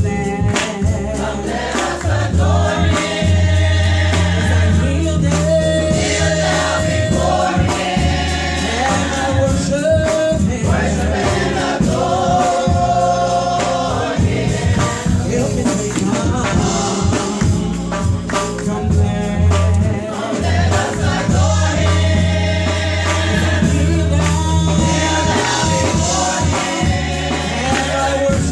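Gospel choir singing with a woman leading on a microphone, sustained sung lines over instrumental backing with a heavy bass and a steady beat.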